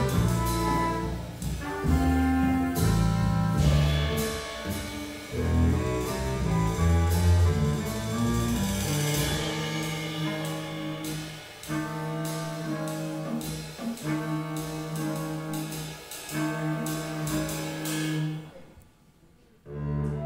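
Live jazz quartet playing: trumpet and saxophone over upright bass and drums with cymbals. In the second half the band plays four held notes together, each about a second and a half long. The band then cuts out for about a second before coming back in.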